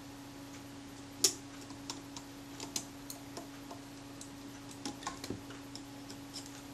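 Irregular small metallic clicks and taps of steel tweezers against the screws and plates of a Rolleiflex TLR's front as a small part is nudged into position, with one sharper click about a second in, over a low steady hum.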